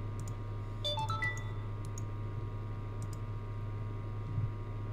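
Scattered computer mouse clicks. About a second in comes a short electronic notification chime of quickly rising notes, over a steady low electrical hum.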